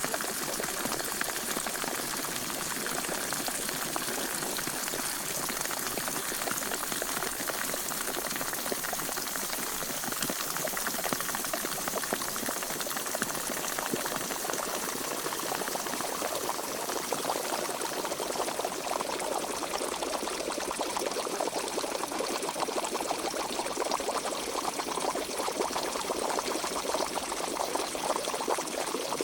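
Pot of water at a rolling boil, bubbling densely and steadily. About two-thirds of the way through, the bubbling turns deeper and fuller.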